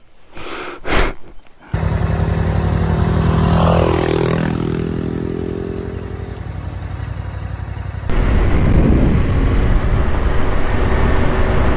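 Yamaha Ténéré 700's parallel-twin engine running at a steady cruise on the move, heard from on the bike, starting about two seconds in. A few seconds later it turns louder and rougher with heavy wind and road rumble.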